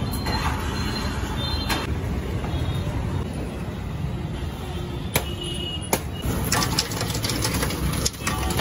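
Steady low street rumble, with two sharp knocks about five and six seconds in, then a rattle of clicks near the end as crushed ice is tipped from a cloth sack into the ice-cream machine's drum.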